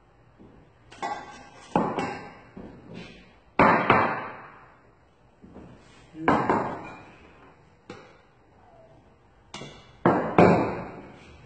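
A series of about seven sharp knocks at uneven spacing, each ringing briefly: milk jugs of frothed milk knocked and set down hard on the counter.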